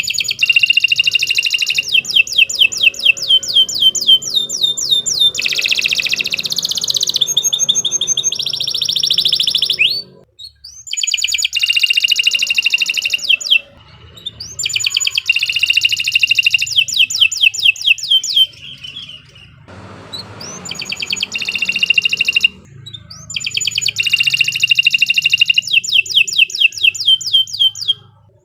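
Domestic canary singing long phrases of rapid, repeated chirping notes and trills, with a few short breaks between phrases.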